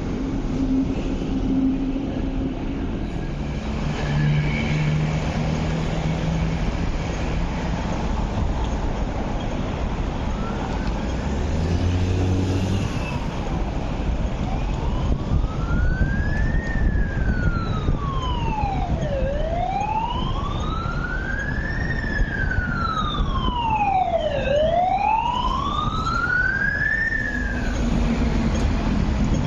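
An emergency vehicle siren wailing in slow rises and falls, about five seconds per cycle, starting faintly about ten seconds in and growing clearer, over the steady running noise of an electric train.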